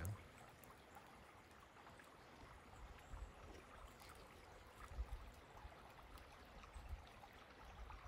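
Near silence: a faint, steady hiss of a low-running creek, with a few soft low bumps.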